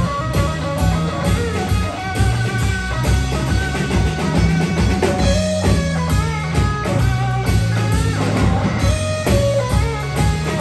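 Live blues-rock trio playing: electric guitar lead lines with bent notes over bass guitar and a drum kit.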